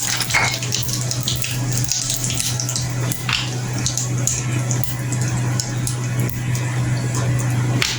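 Whole cumin seeds spluttering and sizzling in hot mustard oil, a dense crackle of many quick pops, over a steady low hum.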